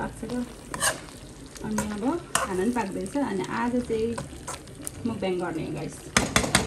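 A spoon stirring potato and cauliflower curry in a metal pot: soft scraping with sharp clicks of the spoon against the pot, several quick clicks near the end.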